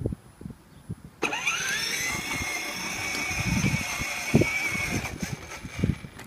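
Vacuum cleaner switched on: its motor whine rises quickly to a steady high pitch, runs for about four seconds and dies away about five seconds in, with scattered knocks and bumps underneath.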